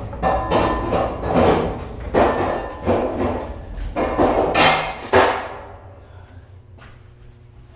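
Heavy metallic knocks and clanks, about two a second, each ringing briefly in an enclosed steel compartment, stopping about five seconds in and leaving a faint hum.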